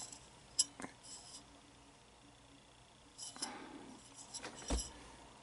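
A few faint metallic clicks and clinks as an aluminium air variable capacitor is handled and turned over, with a dull knock near the end.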